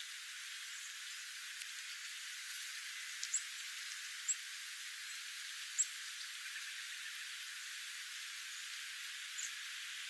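Dark-eyed juncos giving a few short, high chip calls, spaced out, the sharpest three in the middle, over a steady hiss.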